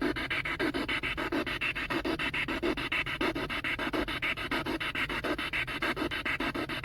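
Spirit box scanning through radio stations: choppy static in an even, fast rhythm of short pulses, with no voice coming through.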